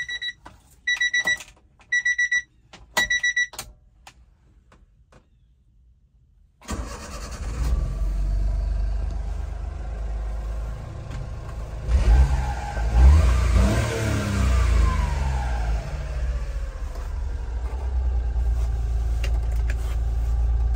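Four short electronic beeps about one a second, then the 1998 Honda Acty's small three-cylinder engine starts about a third of the way in and runs. It is revved up and down a couple of times near the middle and then settles to a steady idle.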